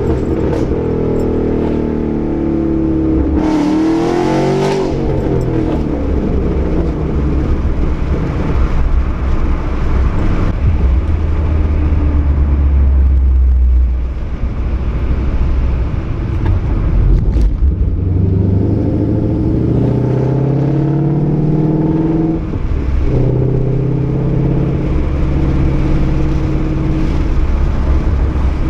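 Ford Mustang 5.0 V8 through a Roush axle-back exhaust with an off-road X-pipe, under way on the road. The engine note climbs and falls with acceleration and gear changes, one change a few seconds in and another about three quarters of the way through, around a steadier low drone while cruising in the middle.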